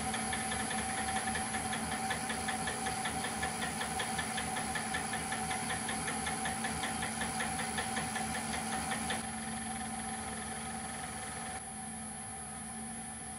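Wood lathe running with a small oak barrel blank spinning: a steady motor hum with a fine, even ticking over it. The ticking fades out about nine seconds in, and the sound grows quieter again near the end.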